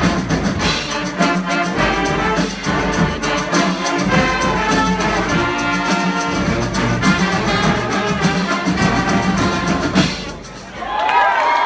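Brass street band playing horns over a busy drum beat, ending the tune on a final hit about ten seconds in. Cheering and whoops from the audience rise right after.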